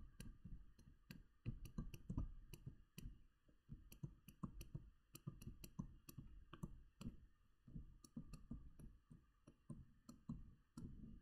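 Faint, irregular taps and clicks of a digital stylus on a screen, several a second, as words are handwritten.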